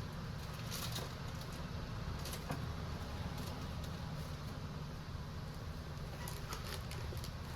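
Steady low hum with scattered light clicks and taps, typical of small tools and parts being handled on a workbench.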